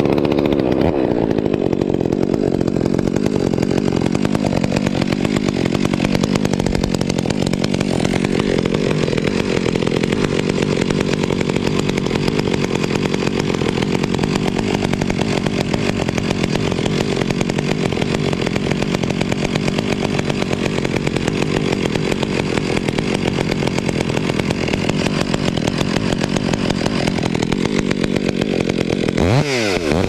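Chainsaw running under load, cutting a notch into an oak trunk. It runs steadily for nearly the whole time, then the revs drop and pick up again in the last second.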